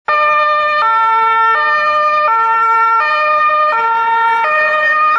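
German police car's two-tone siren (Martinshorn) sounding on an emergency run, switching back and forth between a low and a higher note about every three-quarters of a second.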